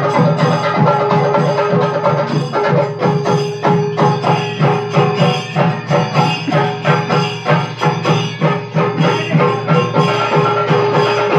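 Percussion-led music: fast, even drum strikes over a steady held drone tone.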